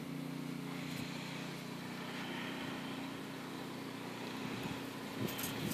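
A steady low mechanical hum, like a distant engine or motor running, under faint background hiss.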